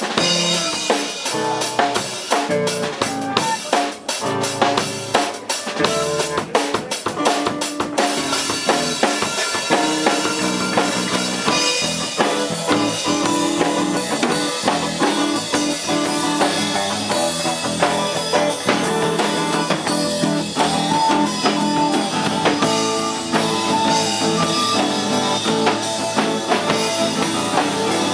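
Pearl drum kit played solo, fast hits on snare, bass drum and cymbals, before the full band comes back in about eight seconds in, with guitars and bass playing over the drums.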